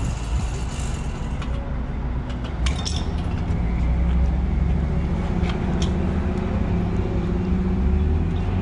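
Gas pump dispensing gasoline through a nozzle into a car's fuel tank: a steady low hum and rush of flowing fuel, with a few light clicks.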